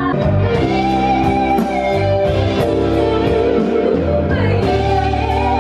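Live band playing, with electric guitar and keyboards over a steady bass line.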